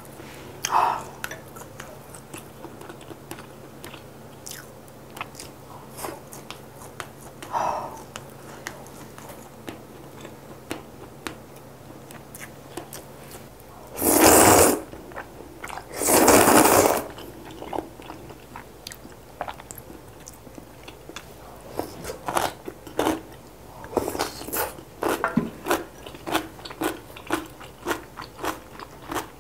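Close-miked eating sounds: quiet chewing with scattered wet mouth clicks, then two loud slurps of kalguksu noodles about halfway through, each lasting about a second. After the slurps comes a dense run of quick chewing clicks.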